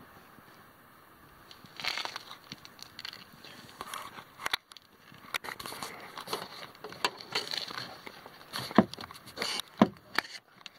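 2004 Dodge Grand Caravan driver-door power window motor being handled and worked loose inside the door by hand. Irregular plastic clicks, scrapes and knocks with rustling, the loudest knocks near the end.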